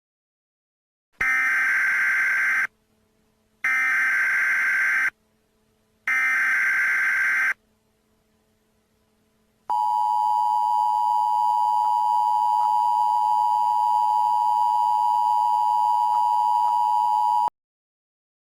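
Emergency Alert System SAME header: three bursts of digital data tones, each about a second and a half long, followed by the EAS two-tone attention signal held steady for about eight seconds, announcing an alert message.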